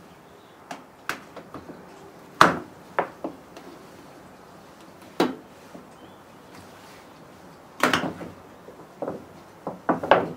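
Plastic water-barrier sheet being pulled off a van's sliding-door frame and handled, crinkling and snapping in irregular sharp crackles, the loudest about two and a half seconds in and again near eight seconds in.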